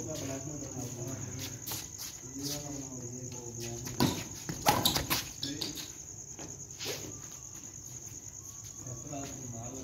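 Badminton rackets hitting a shuttlecock in a rally, with the sharpest hits about four and five seconds in and a lighter one near seven seconds, over steady crickets.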